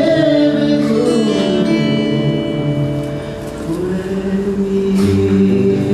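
A man singing a worship song into a microphone over acoustic guitar; his voice glides on held notes in the first second or two, while the guitar chords ring on steadily.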